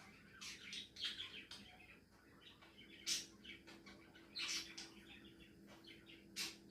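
Budgies giving soft, scattered chirps and quiet chatter while resting, the sleepy sounds of napping budgerigars. The chirps come in short clusters, the loudest about three seconds in, over a faint steady hum.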